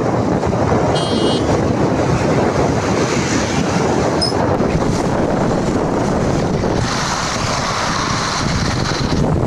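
Wind rushing over the microphone on a moving motorcycle, with road and vehicle noise underneath. A short high-pitched chirp comes about a second in.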